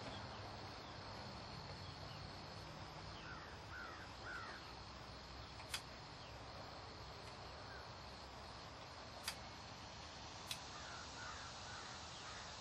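Quiet outdoor background with a bird calling faintly in two short series of three or four calls, and three brief sharp clicks from handling at the furnace.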